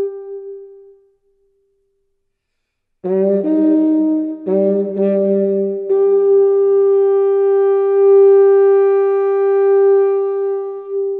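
Background music played on a wind instrument: a held note fades out within the first second, about two seconds of silence follow, then a few shorter notes over a lower tone from about three seconds in, and one long held note from about six seconds in.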